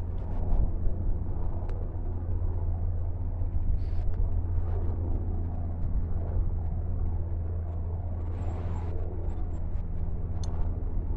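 Steady low engine drone of a large cruise ship under way, carried across open water. A few faint, short high chirps come through near the end.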